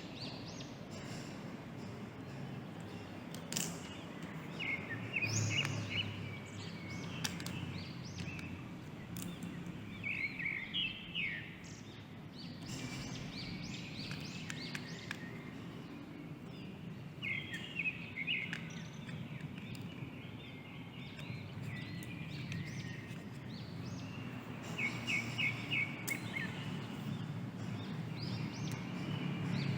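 Birds chirping in short quick trills, four times, over steady background noise with scattered light clicks.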